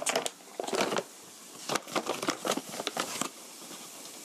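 Plastic flour bag crinkling and rustling in irregular bursts as a spoon is dug into it to scoop flour; the rustling stops a little after three seconds in.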